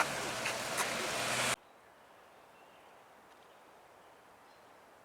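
Steady roar of rushing, high-flowing water that cuts off abruptly about a second and a half in, leaving only faint, quiet outdoor background.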